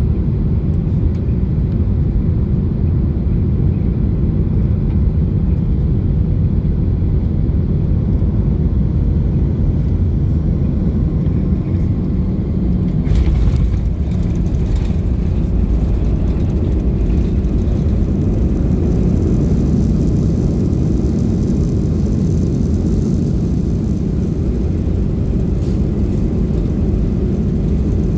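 Steady low rumble of Boeing 737-600 cabin noise, from engines and airflow heard from a passenger seat. About thirteen seconds in there is a brief louder knock-like disturbance, and a slightly stronger hiss follows.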